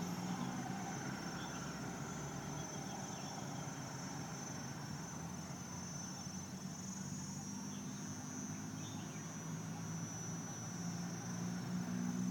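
Diesel-electric locomotive idling with a steady low hum. A steady high-pitched insect chirr runs over it. Near the end the engine grows a little louder.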